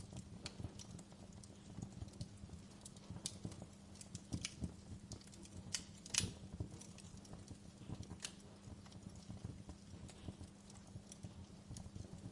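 Wood fire crackling in a stone fireplace: irregular small pops and snaps, with a louder pop about six seconds in, over a low steady rumble.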